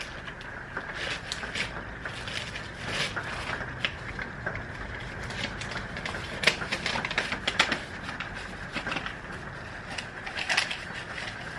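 A paper coffee filter being fitted into a drip coffee maker's basket: irregular crinkling of paper and sharp plastic clicks throughout.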